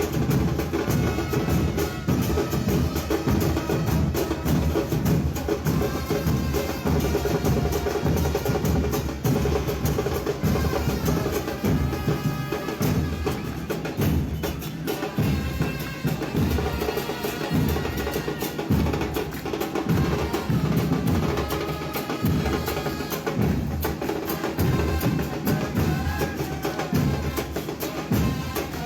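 Band music with steady drums and percussion under held wind-instrument notes, a brass band playing a rhythmic piece.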